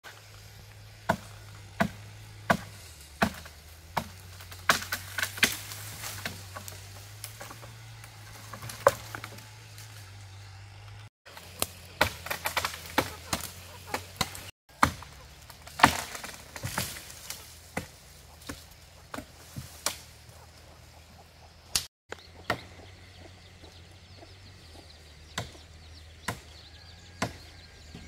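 Repeated chopping strokes on wood: sharp single blows about every second, with several quick runs of rapid strokes in between.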